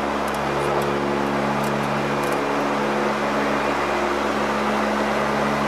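Steady drone of an Ilyushin Il-18's four Ivchenko AI-20 turboprop engines and propellers in flight, heard inside the cockpit. A low, even propeller hum with several steady tones sits over a constant rush of air and engine noise.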